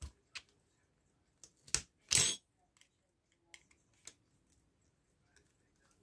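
Small metallic clicks and taps from a screwdriver and brass alarm-clock movement parts being handled, with a louder short clatter a little after two seconds in.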